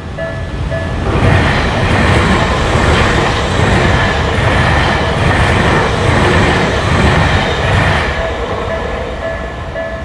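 Japanese level-crossing warning bell ringing its repeated "kan-kan" tone, drowned out about a second in by a passing electric commuter train's rumble and wheel noise for several seconds. The bell comes through again near the end as the train clears.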